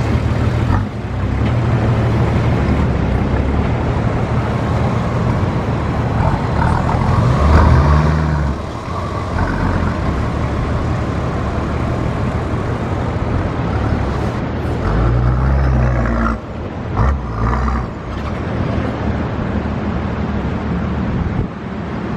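Four-wheel-drive engine running steadily under load while driving off-road, revving up briefly twice.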